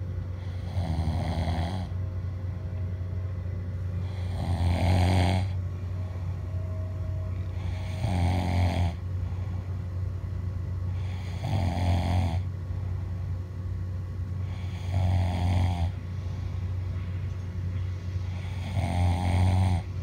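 A sleeping person snoring in a regular rhythm: six snores, one about every three and a half seconds, each lasting about a second, over a steady low hum.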